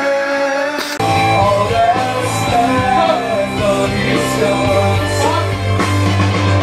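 Rock song with singing over electric guitar and a heavy bass line; held notes give way to the full band about a second in.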